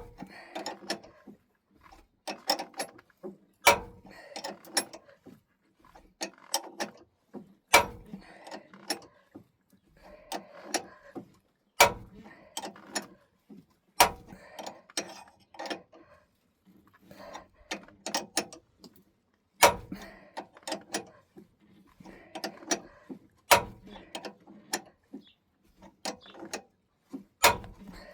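Hand tools working on steel engine parts: runs of ratchet-like clicking in repeated strokes, broken every few seconds by a single sharp metal clack.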